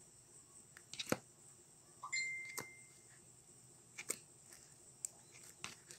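Slime being kneaded and squeezed by hand in a plastic cup, giving about half a dozen sharp sticky clicks and pops. About two seconds in, a steady high beep-like tone lasts under a second.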